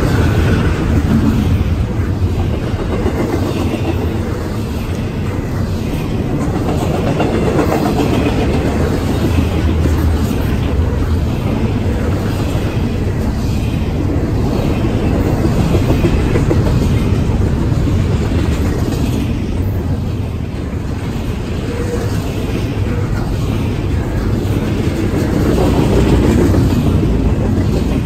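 Train rolling past at close range, a loud, steady rumble of wheels on rail that goes on without a break.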